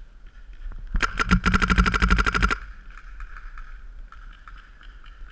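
Paintball marker firing a long burst: a few shots, then a rapid string of about fifteen shots a second, lasting about a second and a half and starting about a second in.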